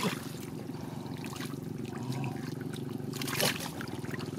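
Splashing and sloshing in shallow muddy water as bare hands grab at thrashing catfish, with a sharp splash at the start and another about three and a half seconds in. A steady low hum runs underneath.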